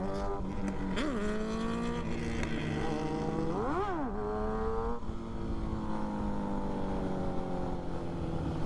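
Motorcycle engine being ridden: three quick blips of the throttle, the biggest just before four seconds in, then the engine note sliding slowly down as the bike rolls off, with wind rushing over the microphone.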